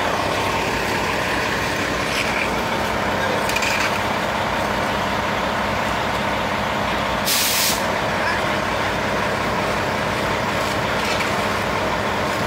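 Semi truck's diesel engine idling steadily, with a short hiss of air about seven seconds in.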